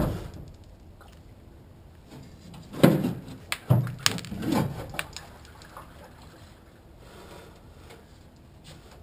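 Clicks and knocks from a ratchet strap and its hardware being worked under a pickup, holding up a fuel tank that is about to be lowered. A knock comes at the start and a cluster of sharp clicks and knocks between about three and five seconds in.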